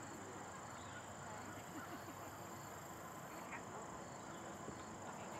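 Faint outdoor ambience: a low hiss with a steady high-pitched whine.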